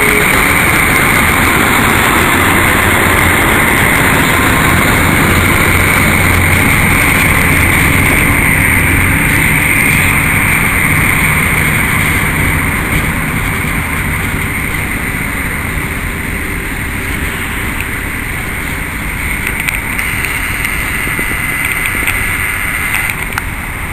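SM30 shunting diesel locomotive running steadily as it hauls tank wagons at walking pace, a continuous engine rumble. It gets a little quieter about halfway through.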